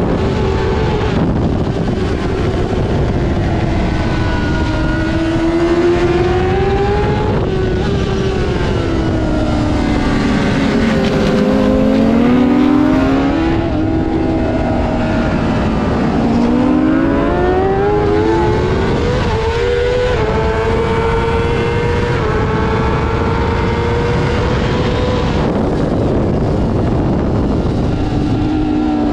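Honda CBR600 racing motorcycle's inline-four engine at high revs, its pitch rising under acceleration and dropping off under braking and shifts, again and again as it laps the track.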